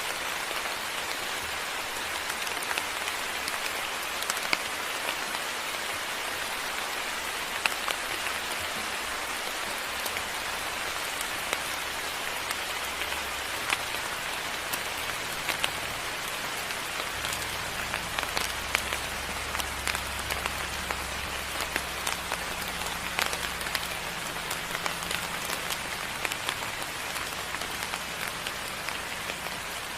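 Steady moderate rain falling, with frequent sharp ticks of single drops striking nearby surfaces. A faint low hum runs under it through the second half.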